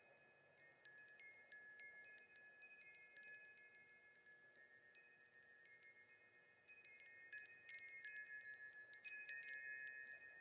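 Wind chimes ringing: irregular high, clear strikes that each ring out and fade, with a couple of short lulls midway.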